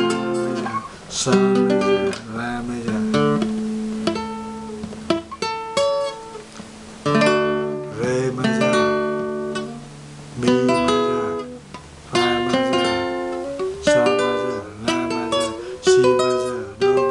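Nylon-string flamenco guitar strumming chords about once a second, each left to ring: A minor seventh and minor sixth chord shapes moved up the neck.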